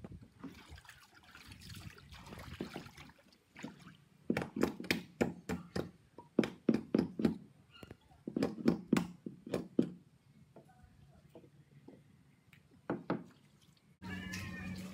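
Floodwater splashing in quick runs of short slaps, about three a second, with quieter stretches between.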